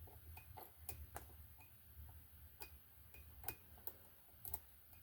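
Faint, irregular small clicks of a screwdriver tip working the Raymarine ST60 Tridata's LCD pins loose one by one on the circuit board, over a low steady hum.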